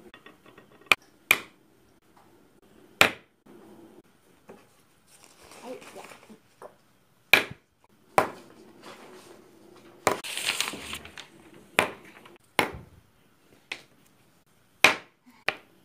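Irregular sharp clicks and knocks of felt-tip markers and their caps handled on a tabletop, with a burst of paper rustling about ten seconds in.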